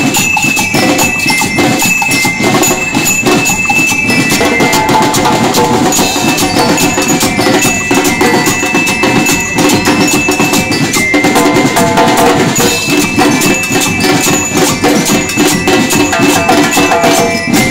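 Street marching band playing: bell lyres ring out a melody over a fast, steady beat of snare and bass drums and metal scrapers. The playing stops right at the end.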